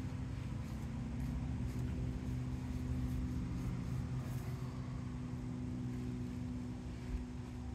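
A steady low mechanical hum at a constant pitch, with a few faint light ticks over it.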